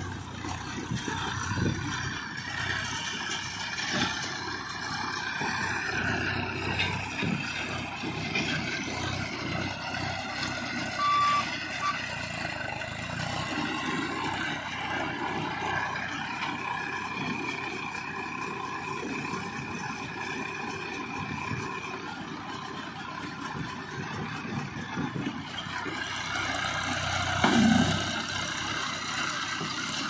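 Massey Ferguson tractor's diesel engine running steadily as it pulls and drives a round straw baler through the field. A short beep comes about eleven seconds in, and a louder surge near the end.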